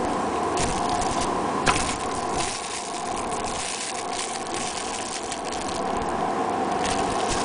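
Thin clear plastic bag crinkling in irregular bursts as it is squeezed and turned in the hands, with a sharp tick about two seconds in. A steady background hum runs underneath.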